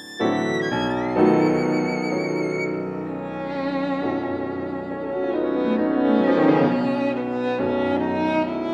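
Violin and piano playing together: the violin holds long notes with vibrato over sustained piano chords, entering louder just after the start.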